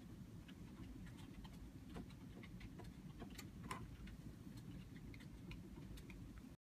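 Faint, irregular light clicks and ticks, several a second, over a low steady rumble; the sound cuts out abruptly just before the end.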